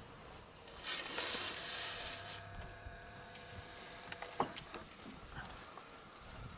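Dry grass and twigs rustling as African elephants move and feed in it, with a few sharp cracks about four seconds in, over a faint steady hum.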